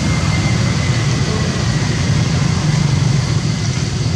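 Steady low mechanical rumble, like a motor running, with an even hiss over it.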